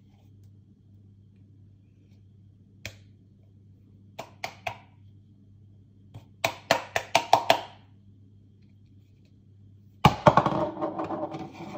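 Sharp taps and knocks of things handled on a kitchen work surface: single clicks, then a quick run of about seven loud taps, then a louder, longer clatter about ten seconds in, over a faint steady low hum.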